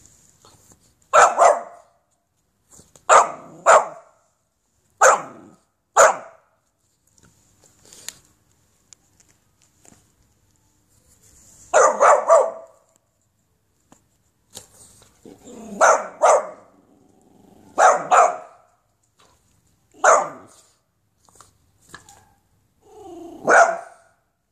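Boxer puppy barking: about a dozen short barks, mostly in quick pairs, with pauses of one to several seconds between them.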